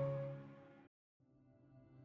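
Background music with held notes fading out, a short break of silence about a second in, then the music coming back very faintly.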